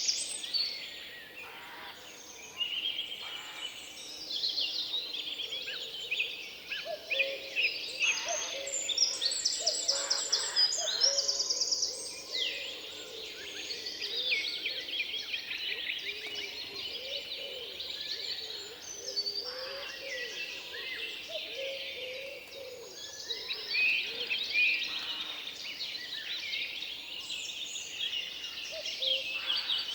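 Forest bird chorus: many songbirds singing at once, quick chirps and trills overlapping, with some lower calls underneath.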